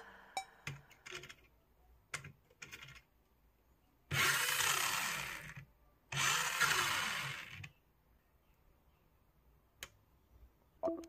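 Small electric motor in the toy car's rear gearbox whirring in two short runs of about a second and a half each, after several light clicks of a small switch and wiring being handled.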